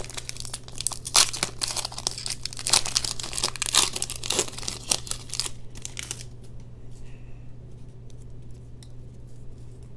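Foil wrapper of a Pokémon trading card booster pack being torn open and crinkled by hand. The crackling tear runs for about six seconds, then gives way to faint rustles.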